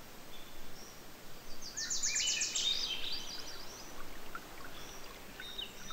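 Forest ambience: birds singing over a steady rush of river water, with a fast trill of high notes about two seconds in, followed by scattered chirps.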